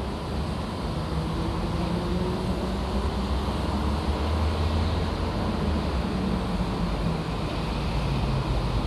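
Construction-site machinery engine running steadily, a low rumble whose pitch drifts slightly up and down.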